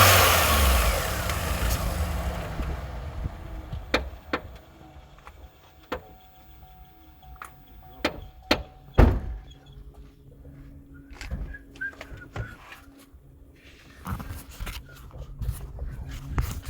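Vauxhall Astra J engine falling back from a rev over the first two seconds. Then come scattered knocks and clunks, the loudest about nine seconds in, over a faint steady hum.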